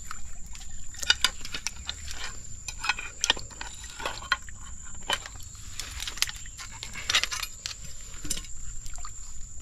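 A string of irregular sharp clicks and snaps, with a faint steady high-pitched whine throughout.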